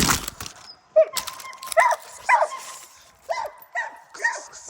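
Pit bull barking in about six short, sharp barks roughly half a second apart, after a loud thump at the very start.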